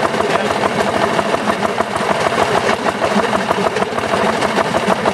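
Small engine of a rail section car running steadily with a fast, even beat as the car rolls along narrow-gauge track.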